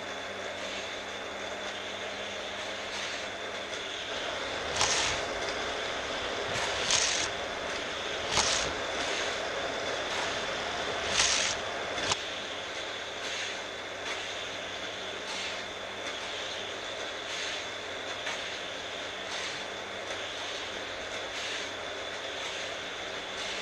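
Vintage Hot Wheels motorized booster stations whirring steadily as die-cast cars race around orange plastic track. Sharp zips come as the cars shoot through a booster, several loud ones in the first half and fainter ones about once a second after that.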